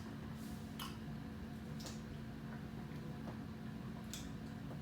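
Faint, scattered clicks of eating and handling food, four or so spread over a few seconds, over a steady low hum.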